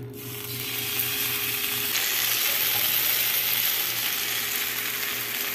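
Whole tomatoes sizzling in hot oil and pan drippings in a nonstick frying pan. The sizzle starts as they go in and builds over the first two seconds, then holds steady.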